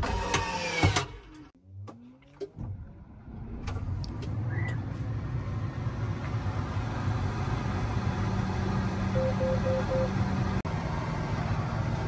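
John Deere S7 800 combine's diesel engine heard from inside the cab, rising in pitch and coming up to a steady running hum about four seconds in. About nine seconds in come four short beeps from the cab.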